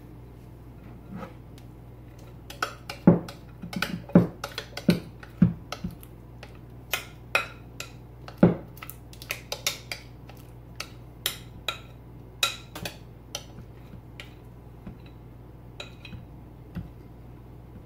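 Metal spoon clinking and scraping against a glass mixing bowl while scooping out banana bread batter, an irregular run of sharp clinks that thins out toward the end.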